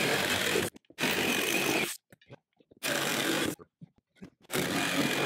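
Corded electric jigsaw cutting the aluminum roof sheet of a box truck for a vent opening. It runs in short bursts, starting and stopping about four times.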